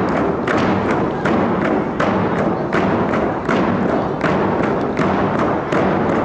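Round hide hand drums beaten together in a steady beat, close to three strokes a second, over a dense steady wash of sound.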